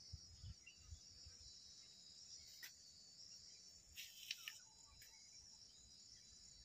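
Faint insect chorus from the surrounding vegetation: a steady, high-pitched shrilling, with a few short sharp chirps around the middle.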